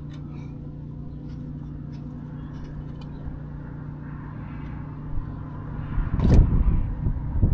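A steady low mechanical hum, joined from about five seconds in by wind gusting and rumbling on the microphone, with one sharp click about six seconds in.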